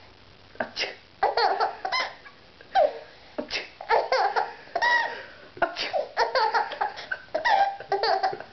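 A baby laughing in a string of short, separate bursts of giggles and belly laughs.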